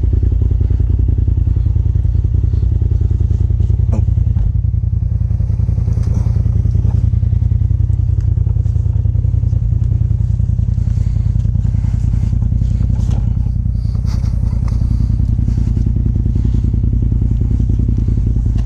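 Side-by-side UTV engine idling steadily and deeply, with a few light knocks and clatters over it.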